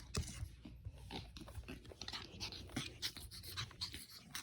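Small puppy moving about close by: irregular short scratchy clicks and rustles mixed with small snuffling sounds.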